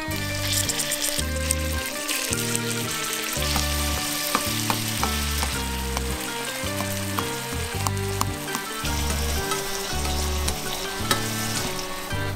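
Food sizzling in hot olive oil in a pan while being stirred, with occasional sharp clicks of the utensil against the pan.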